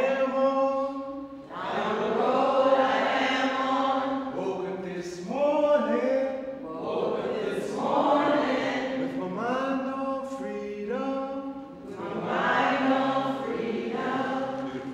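Unaccompanied call-and-response singing: a man sings a line and a small group of voices sings it back, in phrases of a few seconds with short breaks between them.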